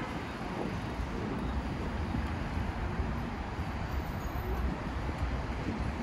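Outdoor city ambience: a steady low rumble with wind buffeting the microphone.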